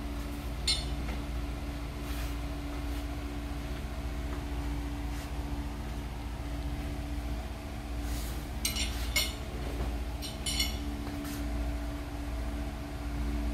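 Steady low hum of room ventilation, with faint swishes and a few sharp clicks as a staff is swung and handled in a martial arts form. One click comes about a second in, and a quick cluster of clicks about two-thirds of the way through.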